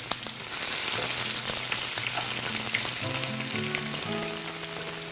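Sliced shallots sizzling in hot oil and caramelizing sugar in a frying pan, the first stage of a caramel sauce for braised ribs. The sizzle swells about half a second in, with small pops and ticks throughout.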